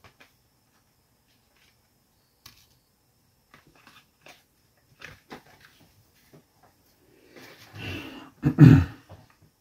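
Plastic blister packaging handled and pried open, with scattered small clicks and crackles, then two louder short rustling sounds near the end, the second the loudest.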